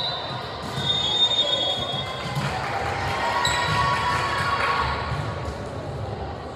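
Indoor volleyball game sounds in a gym: ball thuds and short high squeaks of shoes on the court floor, under crowd voices that swell in the middle and fade near the end.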